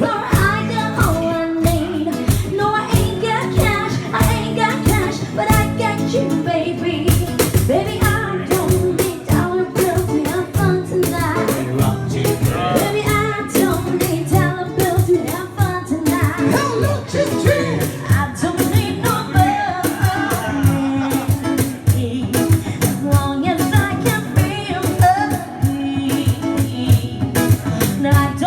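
A live band playing a song with singing over a steady drum beat, as at a sound check.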